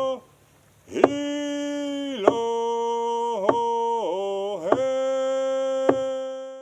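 A voice chanting in long held notes that slide down in pitch between them, with a sharp struck beat about every second and a quarter. It fades out near the end.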